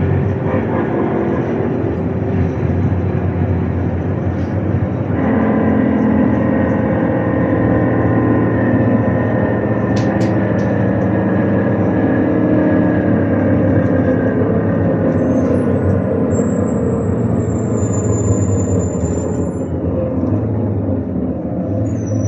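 ADL Enviro300 single-deck bus driving, its engine and driveline running steadily with a shift in pitch about five seconds in. A sharp click comes about ten seconds in, and a high squeal lasts a few seconds near the end as the bus slows.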